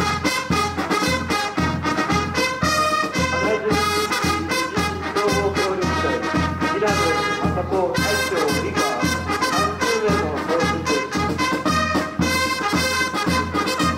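Brass band playing: trumpets and other brass carrying the tune over a steady drum beat.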